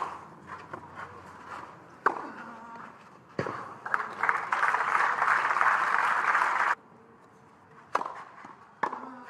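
Tennis ball struck on a clay court, two sharp hits about a second apart, followed by about three seconds of crowd applause that cuts off abruptly. Then two more single ball bounces or racquet hits.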